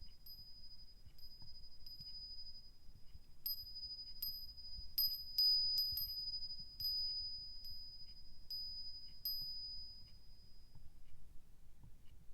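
Nanbu cast-iron wind chime ringing in a breeze: its clapper strikes again and again at uneven intervals, each strike sustaining one high, clear bell tone. The strikes come thicker and louder in the middle, and the ring fades away near the end.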